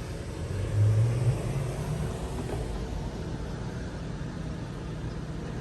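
A low rumble that swells briefly about a second in, then runs on steadily.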